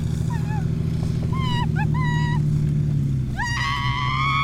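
A Jeep's engine runs steadily under several short, high-pitched sliding cries, then one long, slowly rising high-pitched cry near the end.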